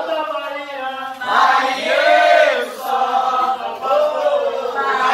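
A group of voices sings an unaccompanied Umbanda chant (ponto) in long, rising-and-falling sung phrases, one after another.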